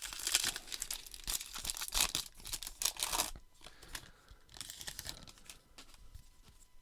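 Wrapper of a baseball card pack being torn open and crinkled: dense crackling for about the first three and a half seconds, then softer rustling of the wrapper and cards.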